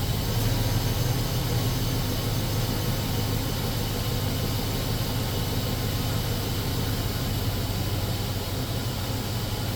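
2003 Chevy Silverado's 5.3-litre V8 idling steadily with a low, even hum. It has been freshly reassembled with new knock sensors, oil pressure sensor and intake manifold gaskets, and it sounds pretty good.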